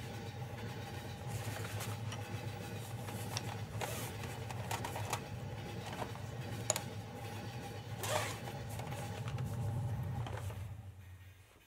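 Steady low rumble of a train carriage interior, with paper rustling and a few clicks as a sketchbook is closed and slipped into its cover. The rumble fades away near the end.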